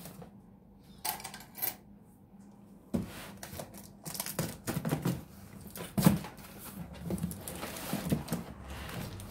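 Hands handling a cardboard appliance box: an irregular run of knocks, taps and rustling scrapes, with the sharpest knocks about three and six seconds in.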